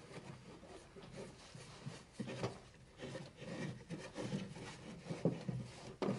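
A hand tool working wood: irregular rubbing and scraping strokes against the wood.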